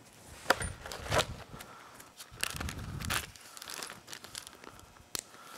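Clear plastic parts bag crinkling as a small engine gear is dropped into it and handled, with a few sharp clicks of small metal parts.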